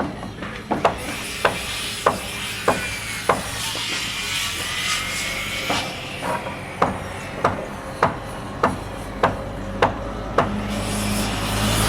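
Hammer striking wood on a construction site, about one blow every 0.6 seconds, with a pause of a couple of seconds in the middle.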